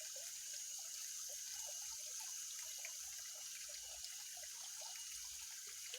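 Faint, steady trickle of water with many small drips and gurgles.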